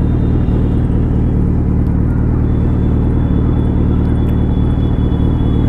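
Suzuki Hayabusa's inline-four engine running steadily at an even, low pitch, with no revving.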